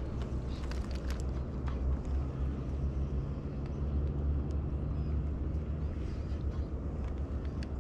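Steady low rumble of outdoor background noise, with a few faint clicks in the first second and a half.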